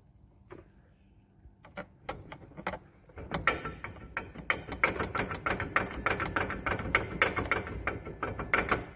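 Rapid, irregular metallic clicking and knocking at an engine mount with a yellow insert as it is worked by hand. The clicks are scattered at first and come thick and fast from about three seconds in.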